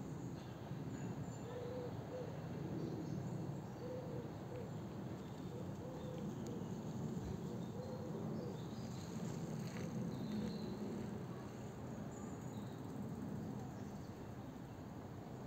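Park birdsong: scattered short high chirps and a low call repeated every second or two, over a steady low rumble.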